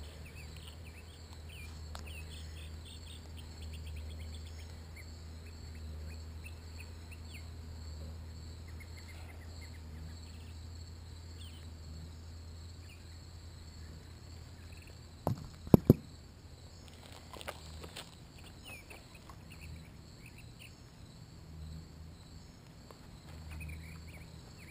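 Steady background chorus of insects trilling over a low, steady rumble, with faint short chirps in the first few seconds. About fifteen seconds in, three sharp knocks close to the microphone are the loudest sounds.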